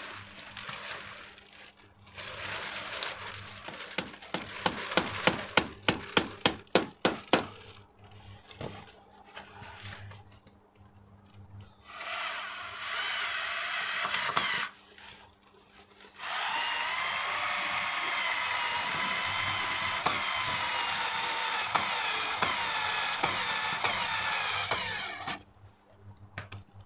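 A quick run of hammer blows, a dozen or so sharp knocks. Then a power drill runs twice, briefly and then for about nine seconds, its pitch wavering under load as it drives screws fixing the PVC strip curtain.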